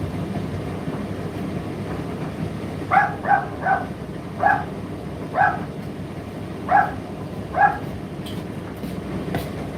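Indesit IDC8T3 condenser tumble dryer running with a steady whir and hum. Over the middle of the stretch a dog barks seven short times.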